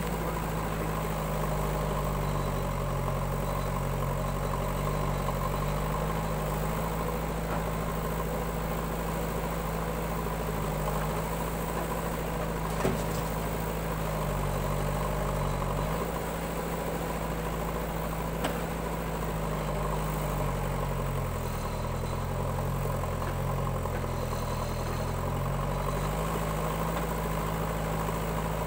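Diesel engines of a JCB backhoe loader and a tractor running steadily. The engine note sags and recovers twice as the backhoe's digging arm works, and a single knock sounds about 13 seconds in.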